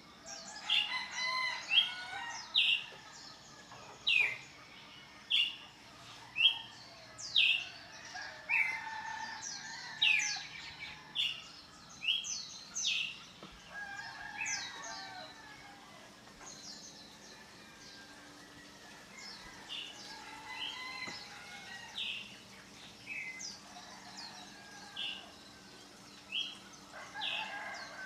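Songbirds calling over and over with short, sharp, falling chirps, about one a second and thinning out in the middle, while chickens add rooster crowing, one crow starting near the end.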